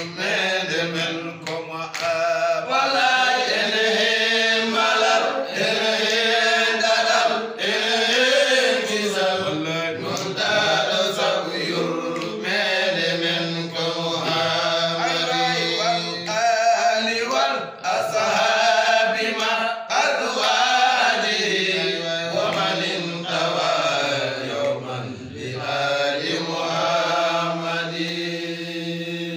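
Men's voices chanting a melodic Islamic devotional chant over a steady held low note.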